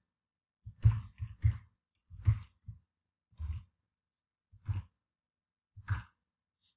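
Computer keyboard keys being struck: about ten short, irregular keystrokes with pauses between them.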